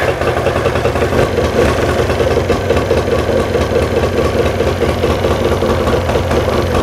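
A 40 hp Evinrude two-stroke outboard motor running steadily right after starting, out of the water on flushing muffs.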